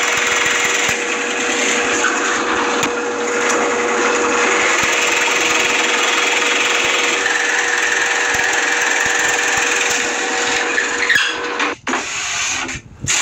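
Drill press running with a large Forstner-style bit boring holes in a wooden saw-handle blank: a steady motor hum under the rasping of the bit cutting into the wood. Near the end the sound drops out briefly twice.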